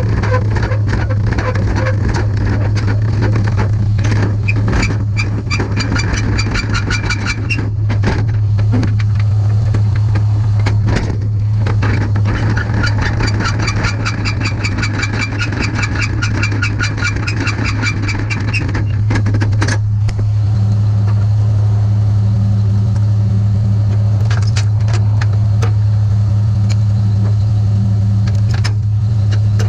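A vehicle engine running with a steady low drone, with patches of fast, evenly repeated ticking or rattling coming and going over it.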